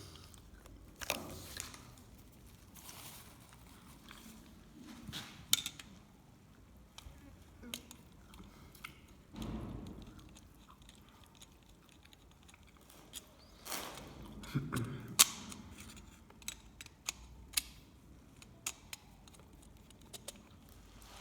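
Irregular clicks, taps and brief rustles of hands handling small parts and tools, with a few sharper clicks standing out.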